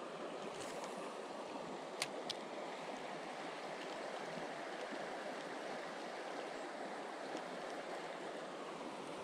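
River water flowing steadily. Two short sharp clicks come about two seconds in.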